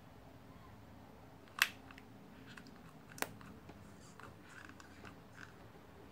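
Quiet handling of a hot glue gun and satin fabric: faint rustles, with two sharp clicks about a second and a half apart.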